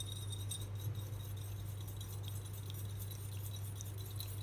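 Coiled-wire whisk beating egg and water in a glass bowl: quick, light, rapid clinking and rattling of wire against glass, over a steady low hum.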